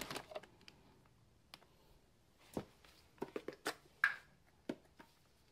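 Soft clicks and taps of gloved hands handling a plastic threadlocker bottle and a steel wheel stud: a few scattered small knocks, several coming close together a little past halfway.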